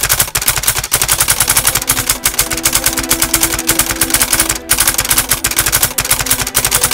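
Typewriter sound effect: a rapid, even clatter of keystrokes, with a brief pause about two-thirds of the way through.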